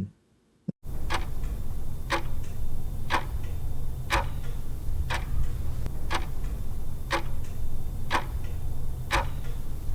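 Clock-style ticking, about one tick a second, used as a countdown while the quiz question waits for an answer. It starts about a second in, over a steady low hum.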